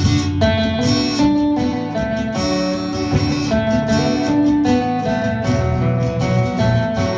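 Acoustic band playing an instrumental passage: strummed and picked acoustic guitar over sustained low notes, with no singing.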